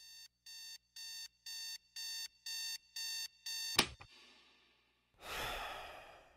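Electronic alarm clock beeping about twice a second, each beep a little louder than the last, cut off by a sharp click a little under four seconds in. About a second later a soft breathy rush rises and fades away.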